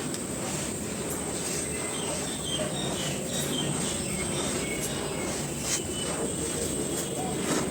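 Dry soft cones crumbling: a few sharp crackles and clicks over a steady hiss. A steady high-pitched whine and a few faint bird chirps sound in the background.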